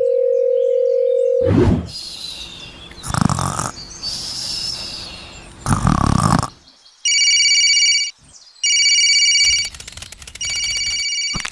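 A steady beep for about a second and a half, then a few loud noisy passages, then a telephone ringing in the second half: three rings of about a second each.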